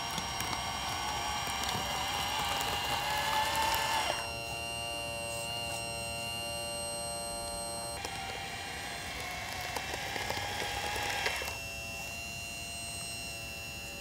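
Small electric drive motors and gearboxes of a 1/14-scale RC bulldozer whining as it pushes dirt, the pitch wavering with the load. About four seconds in the sound switches abruptly to a steadier whine of several even tones, back to the wavering whine at eight seconds, and to the steady one again near the end.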